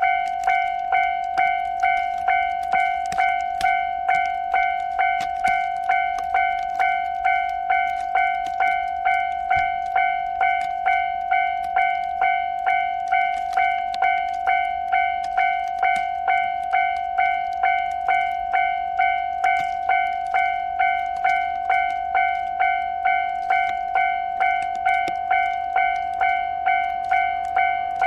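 Japanese railway level-crossing warning bell ringing in a steady, even rhythm, a little under two strikes a second: the crossing is closed for an approaching train.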